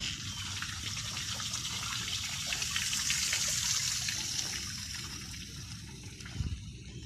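A steady rushing, hissing noise that starts abruptly, swells about three seconds in, then eases off toward the end.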